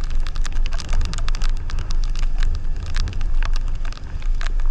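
Motorcycle riding over a muddy road in the rain: a steady low rumble of engine and wind, with many sharp, irregular clicks of raindrops striking close to the microphone.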